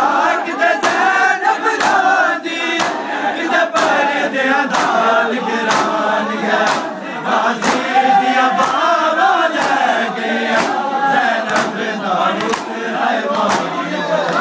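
Many men chanting a mourning lament together while beating their chests with open palms (Shia matam). The slaps land in unison about once a second under the singing.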